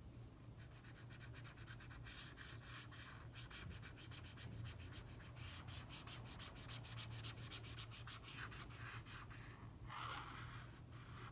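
Felt-tip marker scribbling on paper in quick back-and-forth strokes, colouring in a shape, starting about half a second in. Faint.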